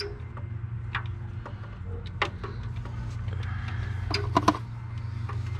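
Scattered light clicks and taps of hands and a metal part working an oil pressure sensor into its port in the engine, two sharp clicks near the end being the loudest, over a steady low hum.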